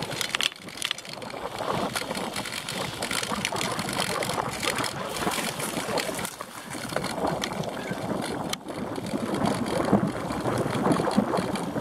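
Mountain bike coasting fast down a dry dirt trail: wind rushing over the microphone, with the tyres' rolling crunch and many small knocks and rattles from bumps in the trail.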